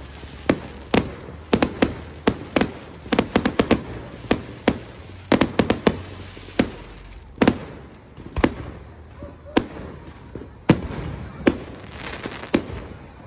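Aerial firework shells bursting overhead: a rapid, irregular run of sharp bangs that thins out after about seven seconds to a few louder single bangs about a second apart.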